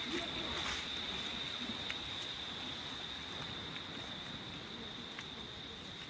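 Insects chirring in a steady, high-pitched drone, over faint outdoor background noise.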